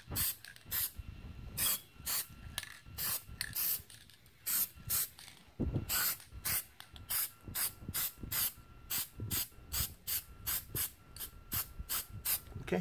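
Aerosol spray can of matte clear coat hissing in many short bursts, about two or three a second, as a final protective coat goes on.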